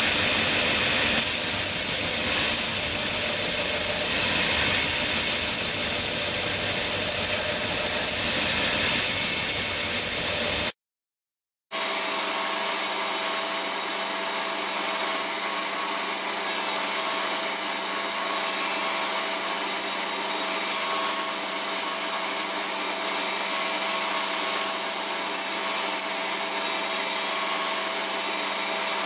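Belt grinder running with its abrasive belt sanding a bubinga wood knife handle: a steady motor hum under a rasping sanding noise. It drops out for about a second about eleven seconds in, then carries on with a steadier hum.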